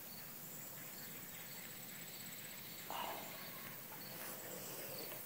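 Quiet outdoor ambience with a faint, high, evenly pulsing insect trill, and one short soft sound about three seconds in.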